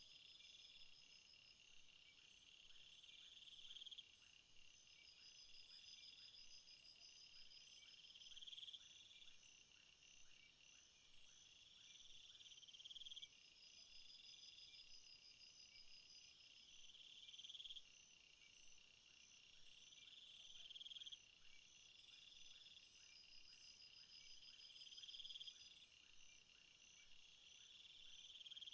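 Faint insect chorus: a high buzzing call that swells and cuts off sharply about every four to five seconds, over steady rapid high chirping.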